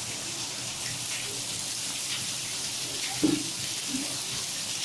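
Steady rain falling, an even hiss of drops. About three seconds in there is a brief, louder low sound.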